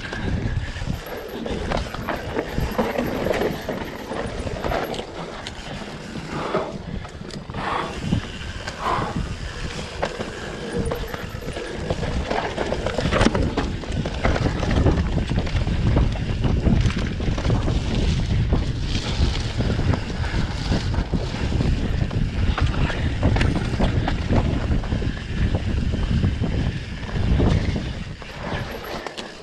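Enduro dirt bike being ridden, its engine running with a rising and falling level under heavy wind buffeting on the microphone, with a few knocks.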